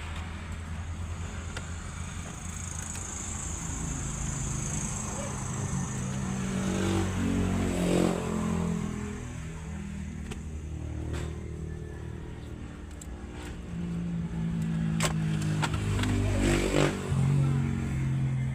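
Motor vehicle engines running, swelling about eight seconds in and again near the end, with a few sharp clicks.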